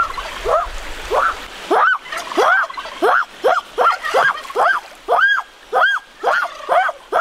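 A turkey calling: a long run of short yelps, each rising and falling in pitch, about two to three a second and getting slightly quicker. Splashing water under the first couple of seconds.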